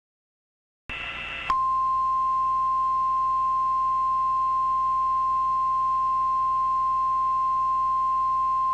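The NOAA Weather Radio warning alarm tone: a single steady high tone about a second and a half in that holds without a break, the attention signal that an emergency weather alert is about to be read. It is preceded by about a second of silence and then, briefly, a faint hum.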